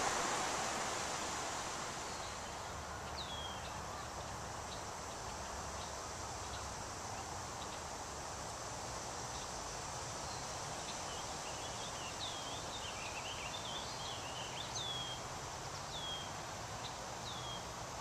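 Wind rustling through leafy trees, a steady hiss that eases a little after the first couple of seconds. Small birds call over it: short high chirps that slide downward, a few at first and more often in the second half, with a brief twittering run about two-thirds of the way through.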